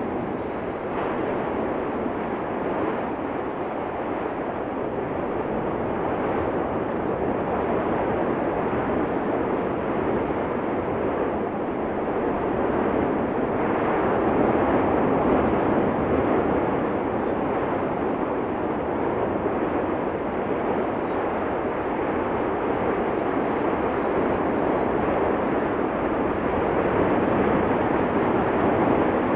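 Continuous rushing noise from the erupting Cumbre Vieja volcano's fissure vents, swelling and easing slowly in loudness.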